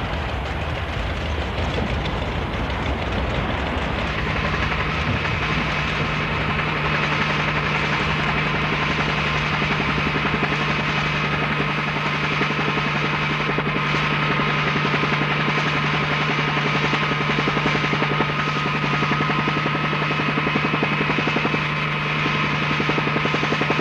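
Helicopter engine and rotor running steadily, a continuous drone with a fast, even chop and a steady hum that joins about four seconds in.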